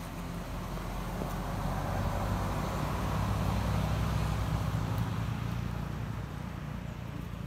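A motor vehicle passing by. Its engine hum and road noise swell to a peak about halfway through, then fade away.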